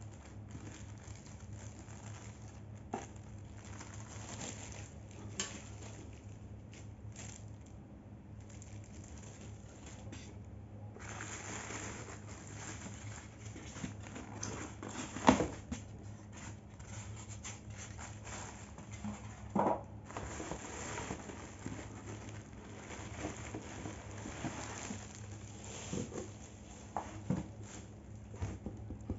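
Packaging being handled: a plastic bag crinkling and a polystyrene foam packing insert and cardboard box rustling and scraping under the hands, with scattered light knocks, the sharpest about midway through.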